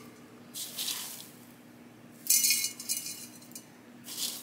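Gritty, pumice-heavy potting mix being scooped by hand and dropped into a terracotta pot, the small stones rattling and clinking in three short bursts about a second and a half apart.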